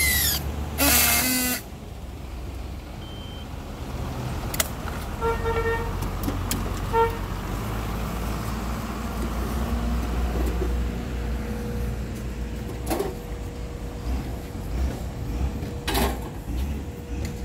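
Handheld battery strapping tool working a plastic strap around a wrapped cable reel: a whine falling in pitch, then a second louder buzz that stops about a second and a half in. After that, a steady low rumble of yard machinery, with two short beeps a couple of seconds apart midway and a few sharp knocks.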